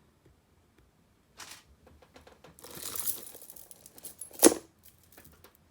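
Hands sorting costume jewelry: crinkling and rustling of packaging in short spells, small clicks, and one sharp knock about four and a half seconds in.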